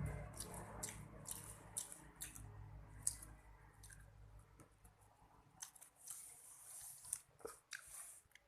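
Close-up chewing: a mouth eating food, with soft wet smacking and irregular short clicks.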